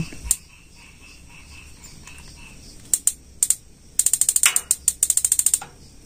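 Gas water heater's electronic spark igniter snapping as the ignition module's switch terminals are bridged with a screwdriver: a few single clicks, then a fast run of about ten sparks a second lasting about a second and a half near the end. The module's battery is nearly flat.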